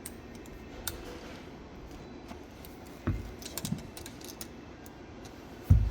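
Small metal parts of a spring-loaded steam safety valve being handled: scattered light clicks and two heavier knocks, one about halfway through and a louder one near the end.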